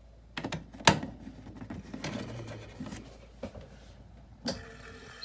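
Clicks and knocks of a hand working the controls of an RV roof vent fan. About four and a half seconds in, a last click is followed by the fan motor starting up with a steady hum.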